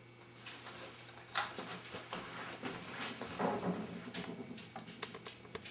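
Scattered knocks, rustles and a short creak as a person gets up from a wooden chair and moves about on a wooden floor.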